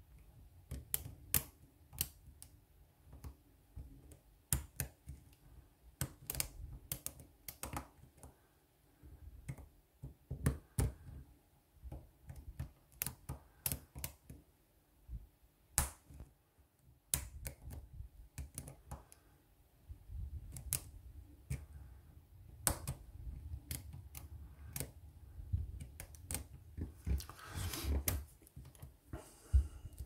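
Lock pick clicking and scraping against the pin stack inside a euro-profile cylinder lock while it is being picked under tension: light metallic clicks at an irregular pace.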